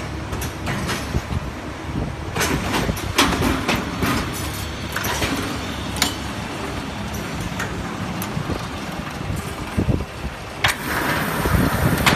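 Cross-feed veneer splicing machine running: a steady mechanical hum broken by scattered sharp clicks and clatters, with a louder spell of hiss near the end.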